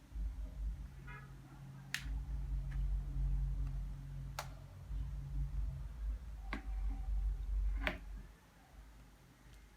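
Four sharp clicks and taps of small repair tools and parts against an iPhone 6 Plus as it is screwed back together, with a quick rattle of tiny ticks about a second in, over a low hum that stops about six seconds in.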